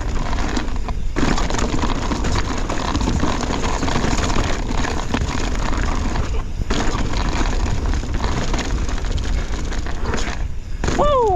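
2024 Pivot Switchblade full-suspension mountain bike ridden fast down a rocky trail: a steady rattle and clatter of tyres over rocks, with chain and frame noise. A few brief lulls.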